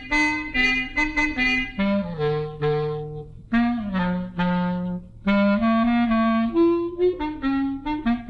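Film score: a single wind instrument plays a melody alone, quick short notes at first, then slower, longer held low notes with brief breaks between phrases.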